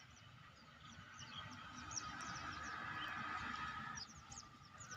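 Small birds chirping over and over in short, high, falling notes. A faint steady hum builds from about one second in and fades near four seconds.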